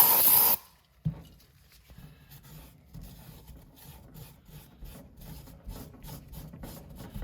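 A short, loud hiss right at the start, then a cloth rubbing and wiping over a turbocharger part in many short, uneven strokes as the part is cleaned up by hand, with nothing abrasive.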